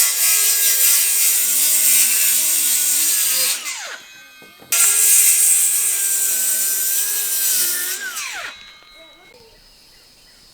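A power saw cutting wood in two runs of three to four seconds each, with a short pause between them. Each run is a steady high whine that drops in pitch as the saw winds down.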